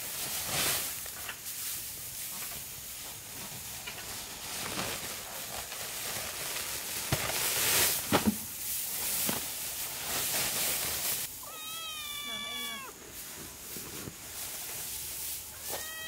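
Rustling noise, then one high, wavering cry lasting a little over a second, about three-quarters of the way through.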